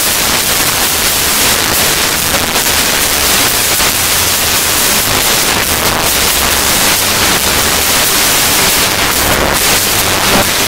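Steady rushing road and wind noise inside a car cabin at highway speed, a loud even hiss.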